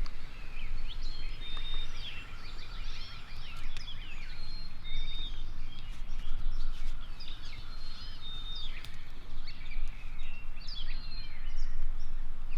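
Chorus of small songbirds singing and chirping, with many overlapping short trills and brief high whistles, over a low rumble.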